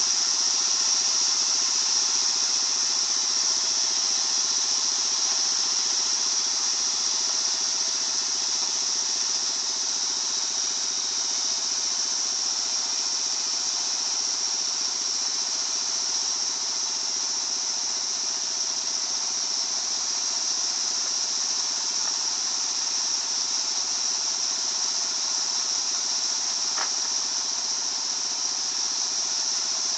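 Circular sawmill running steadily, its saw giving a continuous high whine over a mechanical drone, with one brief click late on.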